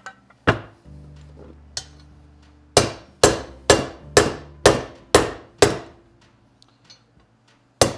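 Ball-peen hammer striking a steel driver to drive a crankshaft main bearing race into a heated aluminium Triumph 650 crankcase half. Each blow is a sharp metallic strike with a short ring: two single taps, then a run of seven about two a second, and one more near the end, as the race is driven home.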